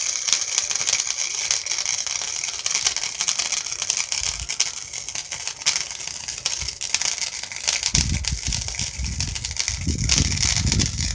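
MIG welder arc crackling steadily while a weld bead is run, cutting off abruptly at the very end as the weld is finished.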